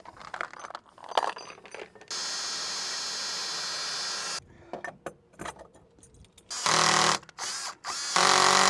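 Cordless drill working into a steel deck, run in bursts: one steady run of about two seconds, then two shorter, louder runs near the end. Clicks and knocks of tools being handled come in between.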